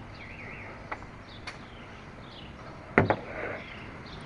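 Birds chirping in the background, with a couple of light clicks and one sharp knock about three seconds in.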